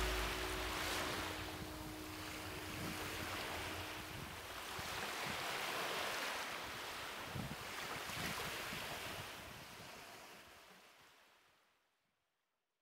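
Sea surf washing onto a beach, rising and falling in slow swells, then fading out to silence near the end.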